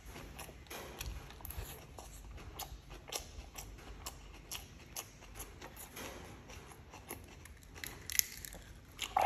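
Someone eating: irregular small clicks and crunches of biting and chewing food, a few a second.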